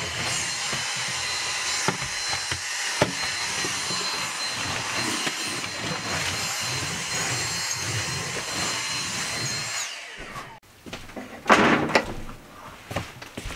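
A steady mechanical whir with a faint high-pitched whine, which stops about ten seconds in; after it come a few loud knocks and rustles.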